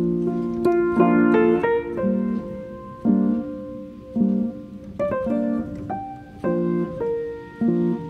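Background music: a light tune with chords struck on a steady beat, about once a second, and short rising runs of notes near the start and in the middle.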